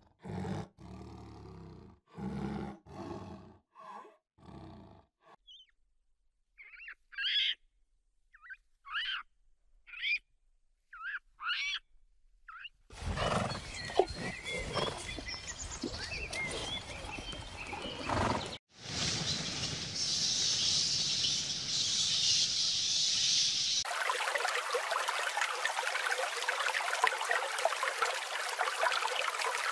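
A lion gives a series of roaring grunts that fall away over about five seconds, followed by several short high chirping calls. Later comes a noisier stretch with a high steady chirring, and finally a steady rush of flowing water.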